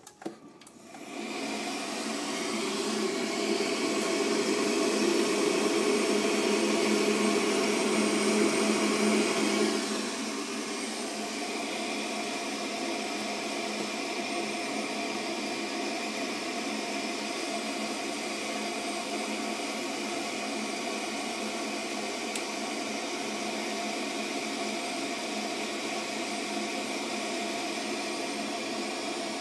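Heatline gas boiler starting up as its control panel is worked: a click, then a steady whirring that builds within about a second, runs louder for about ten seconds, then drops to a lower steady level.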